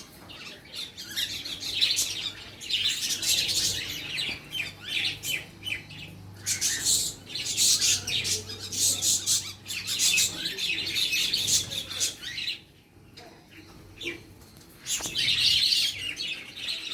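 Many small birds chirping together, their short calls overlapping densely. The chirping drops away for about two seconds some two-thirds of the way through, then picks up again.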